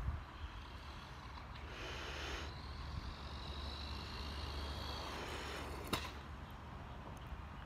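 Battery-electric Arrma Raider RC buggy driving toward the microphone, its motor whining high for a few seconds, then a sharp knock about six seconds in as the buggy reaches the curb. A steady low rumble runs underneath.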